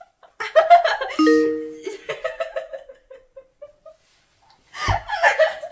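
A girl laughing hard in fits, with a short electronic two-tone chime about a second in.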